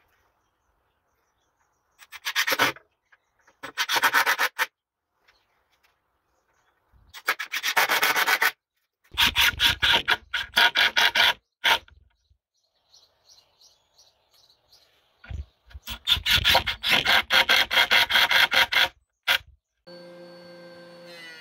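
Milwaukee Fuel cordless impact driver hammering screws into wooden corner brackets, in several loud bursts of one to two seconds with pauses between. Background music comes in near the end.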